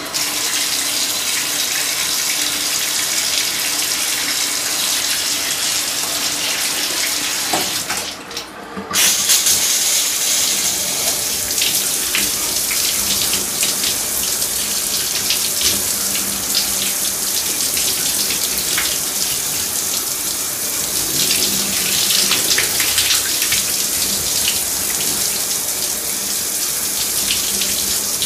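Shower running, its water spray hissing steadily. About eight seconds in, the spray is briefly muffled for about a second, then comes back.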